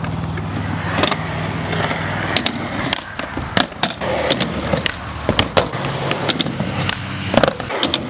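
Skateboard wheels rolling on concrete with a steady rumble. About two and a half seconds in, a string of sharp clacks and knocks from the board begins.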